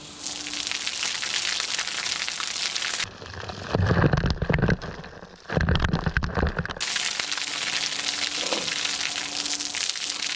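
Water jet from a 3D-printed impeller pump driven by a 775 DC motor, raining down on gravel as a steady hiss like heavy rain. For a few seconds in the middle, the spray splatters heavily right onto the microphone in two loud bursts.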